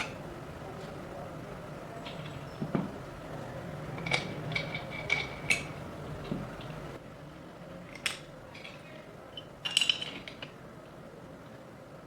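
Scattered light metallic clinks and knocks, a few of them ringing briefly, as of small metal parts or tools being handled and set down.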